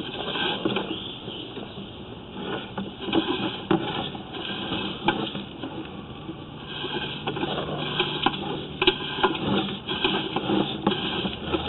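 Sewer inspection camera being pushed along the line on its push cable, with irregular clicking and rattling from the cable and reel, and a faint low hum for a few seconds midway.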